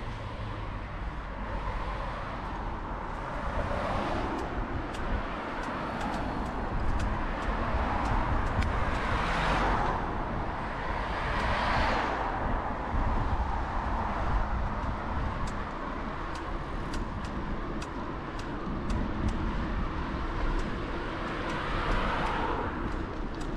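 Road traffic: several cars pass one after another, swelling and fading, the loudest about ten and twelve seconds in, over a steady low rumble with faint scattered clicks.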